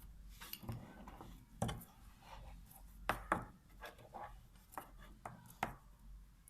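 Light clicks and taps of small parts and wires being handled on a work surface, with a few sharper clicks about a second and a half in, around three seconds and near the end.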